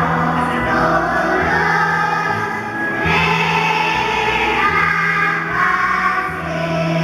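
Kindergarten children's choir singing together over instrumental accompaniment with held low notes.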